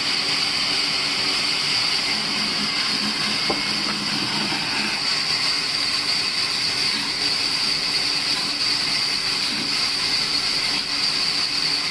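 Large vertical bandsaw running with a steady high hiss, its blade cutting through a block of wood pushed by hand.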